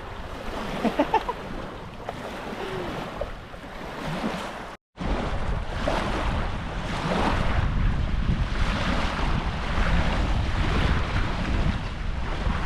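Wind buffeting the microphone over small waves lapping at a lakeshore. The noise is steady, breaks off for a moment about five seconds in, and comes back louder and more rumbling.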